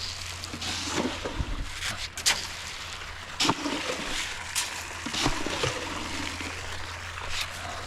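Water splashing and trickling, with a few sharp clicks scattered through it.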